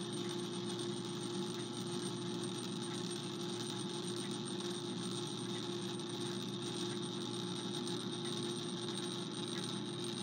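Restored Edison Model D phonograph spring motor running on its own, its governor spinning: a steady whirring hum of the gear train with a faint tick about once a second. The motor is freshly cleaned and regreased and runs smoothly.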